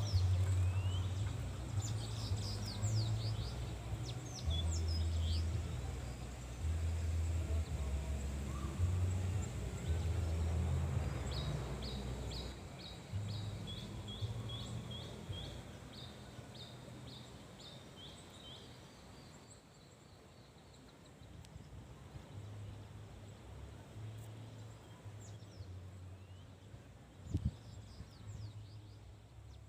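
Waterfall ambience: a soft, steady rush of water with birds chirping over it, including a run of quick repeated song notes around the middle, and low wind rumble on the microphone that comes and goes.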